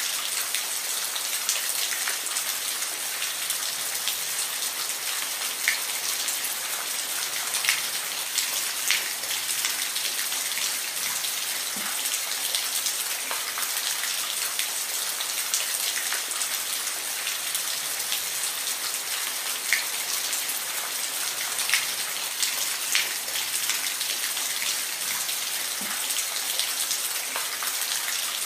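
Steady rain falling, a constant hiss with scattered sharper drop hits at uneven intervals.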